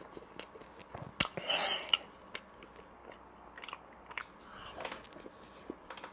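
Chewing and mouth sounds of a person eating a soft cream-filled milk doughnut, with a few sharp clicks between about one and two and a half seconds in.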